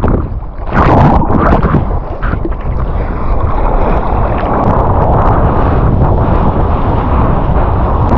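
Wind buffeting an action camera's microphone, with water splashing and rushing around it. The sound is briefly muffled and quieter in the first moment, then steady and loud as the kitesurfer gets back up on the board and rides.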